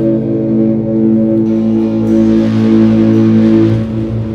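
Experimental music of long, sustained electric guitar notes held as a drone, with a fainter hiss swelling and fading in the middle.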